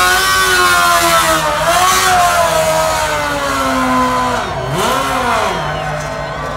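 Modified drag-racing golf cart's engine revving hard as it launches and wheelies down the strip. The pitch swings up and down and sags gradually, then two quick throttle blips come about five seconds in.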